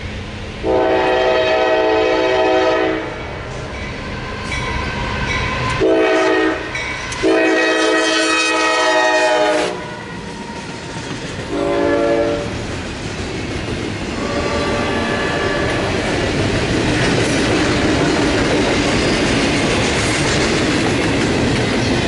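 Air horn of an approaching Norfolk Southern freight locomotive, a GE diesel, sounding several loud blasts, two long and two short. The train then passes close by: a steady rush of wheels on rail with clickety-clack as the double-stack intermodal cars roll past.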